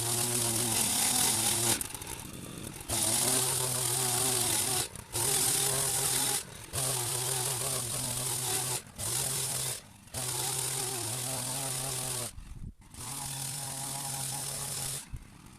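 Power hedge trimmer cutting a berberis hedge, its motor and blades running in bursts of one to two seconds that stop and start again about seven times as the trigger is released and squeezed.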